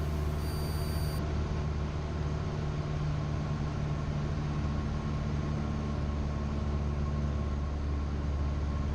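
Cessna 172's piston engine and propeller droning steadily in flight, a low even hum with no change in power.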